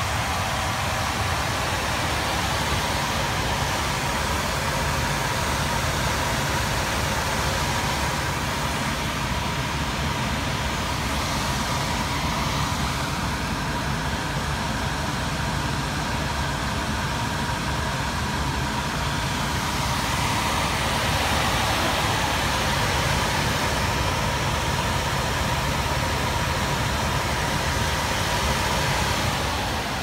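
Old Heil gas furnace running, its squirrel-cage blower fan spinning with a steady rush of air, a faint steady whine and a low hum. The owner says this blower was bad and not spinning fast enough.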